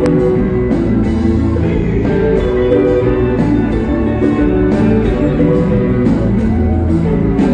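Haitian compas band playing live: guitar over a steady drum beat.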